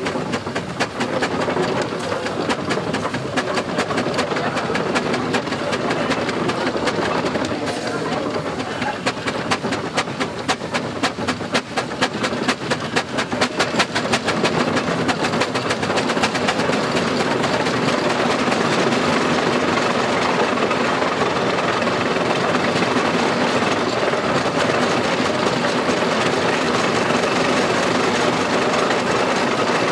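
Steam traction engine running while winching, its exhaust beating fast and evenly. About halfway through the beats blend into a steadier running sound.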